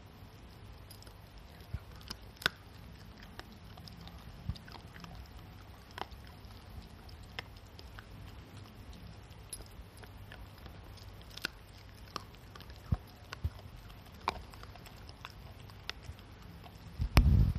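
Shiba Inu chewing on a hard stick treat: scattered small clicks and crunches of teeth on the chew, with a louder low thump near the end.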